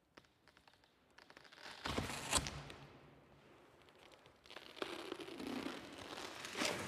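The back panel of a large cardboard car box being torn open and pulled away: two stretches of ripping and rustling cardboard, each with a sharp crack.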